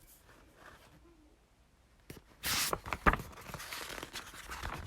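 A book page being turned: a sudden paper rustle about two seconds in, followed by a few light clicks and a softer rustle of handling.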